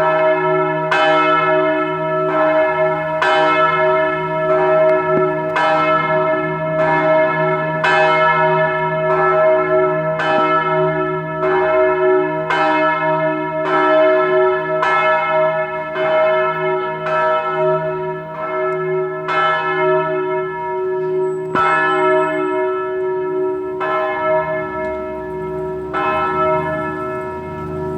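The great church bell of St. Jakob, Köthen, cast in 2001, swinging and ringing: a loud clapper strike about once a second over a steady lingering hum, the strokes coming further apart in the last several seconds.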